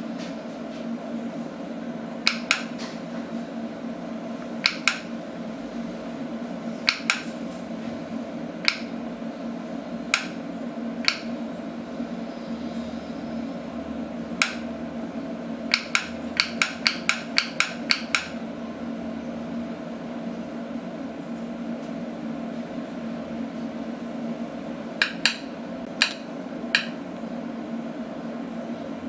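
Sharp clicks of handheld kinetic-energy (self-powered) wireless switches being pressed and released, each press sending a signal to the dimmer. The clicks come singly and in pairs, with a quick run of about a dozen around the middle and a few more near the end, over a steady low hum.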